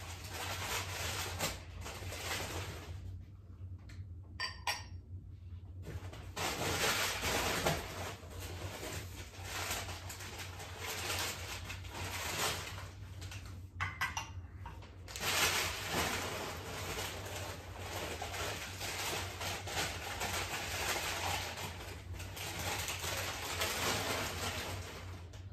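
Paper rustling and crinkling as packed dishes and glassware are unwrapped from a cardboard box, in long stretches with a pause about four seconds in and a brief one near the middle.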